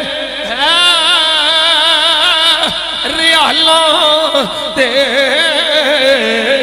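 A man singing a Punjabi naat, drawing out long melismatic notes that waver up and down.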